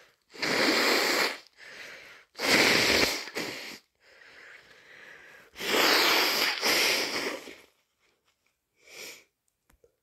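A person with a heavy head cold blowing their nose hard into a tissue several times, long wet noisy blasts of about a second each with quieter ones between, then a short sniff near the end.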